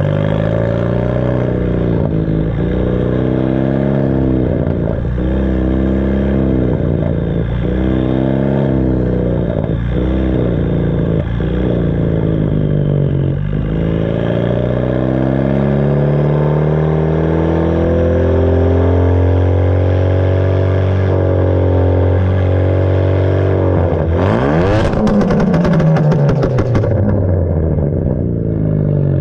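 Hyundai Veloster Turbo's 1.6-litre turbocharged four-cylinder running through a straight-piped exhaust with a 3-inch catless downpipe and no mufflers or resonators, driving slowly. For the first half its pitch swells up and down again and again with short sharp pops between. It then settles into a steady low drone. About 24 seconds in it revs and rises with a burst of crackling pops from the pops-and-bangs tune, then falls away.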